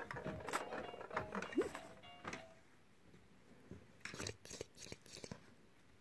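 Short tune-like tones in the first two and a half seconds, with a brief rising squeak, then a few sharp clicks and rattles.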